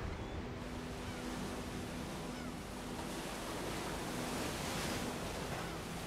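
Sea waves breaking and washing over rocks along the shore, the surf swelling about four to five seconds in.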